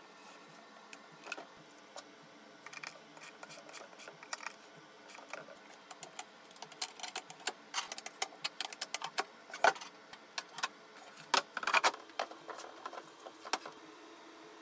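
Irregular metal clicks and clacks of hardware on a wooden box being handled: a spanner turning a bolt and a toggle latch being worked. The clicks grow denser and louder after the first few seconds, with the sharpest clacks about ten and twelve seconds in.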